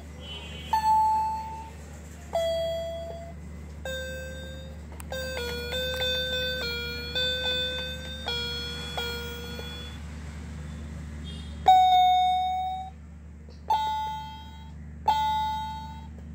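Pink Hello Kitty toy electronic keyboard sounding single electronic notes as a baby presses its keys one at a time, each note fading out. A quick run of many notes comes in the middle, then a short pause and more single notes.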